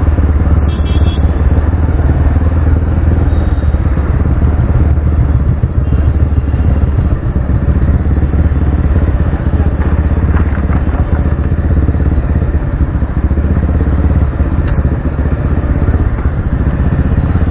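Bajaj Pulsar 180 rebuilt to 220, its single-cylinder engine running through an SC Project aftermarket exhaust while the bike is ridden, with a heavy, steady low rumble on the microphone.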